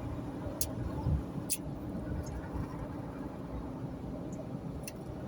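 Steady engine and tyre rumble inside a moving car's cabin, with a few faint clicks.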